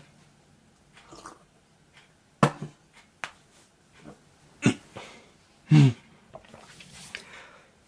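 A man's short, throaty bursts of breath and voice during a sneezing fit, three loud ones between about two and a half and six seconds in.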